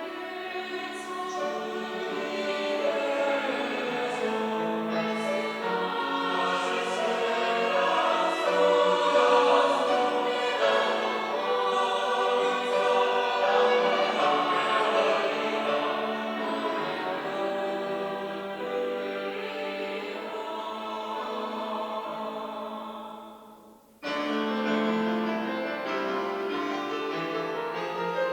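Church choir singing a Sunday anthem, many voices in harmony. Near the end the sound fades almost away and then cuts back in suddenly about a second later.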